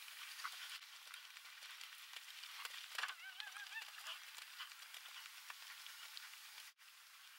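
Geese honking: a quick run of about four arched calls a few seconds in, over a steady crackling hiss.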